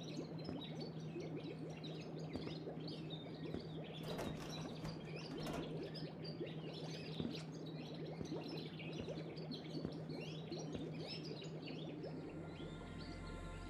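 Pet-shop ambience: many small birds chirping irregularly over a steady low hum. Soft held musical tones come in near the end.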